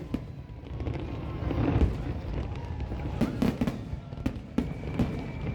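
Fireworks display: a rapid, irregular series of bangs and crackles over a low rumble, with the heaviest bursts about two and three and a half seconds in.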